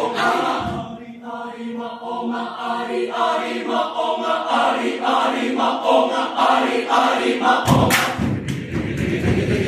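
Mixed choir singing in sustained, held chords. About two seconds before the end the sound turns suddenly louder and rougher, with shouted voices and a few sharp claps.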